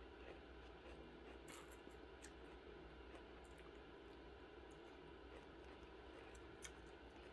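Near silence: room tone with a few faint clicks from eating noodle soup with a plastic fork.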